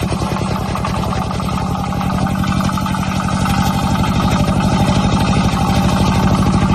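Tractor diesel engine running steadily with a fast, even chug.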